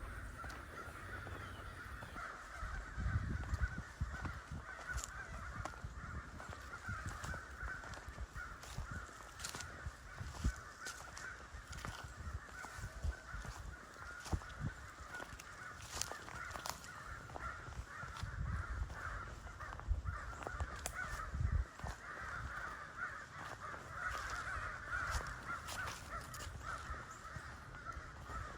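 A flock of agitated crows cawing continuously in a dense, overlapping chorus, going nuts. Scattered clicks and low thumps sound underneath.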